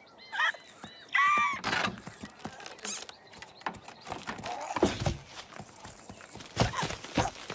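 Cartoon sound effects: two short squawks from a bird character in the first two seconds, then quick scurrying footstep clicks and a few thuds.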